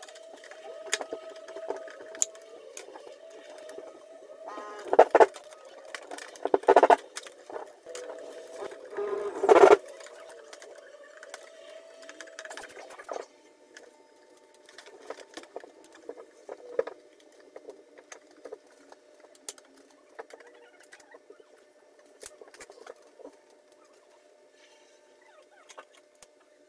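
Hands working at the wiring compartment of a mini-split indoor unit: scattered small clicks and rustles, with three louder squeaks in the first ten seconds, over a faint steady hum that drops away about halfway through.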